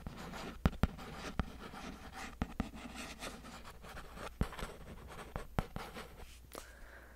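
Pen writing on paper on a clipboard, close to the microphone: a continuous soft scratching broken by scattered sharp taps and clicks.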